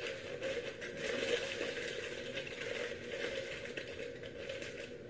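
Aluminium foil crinkling and crackling in irregular strokes as hands fold and press it tight around a packet of ribs.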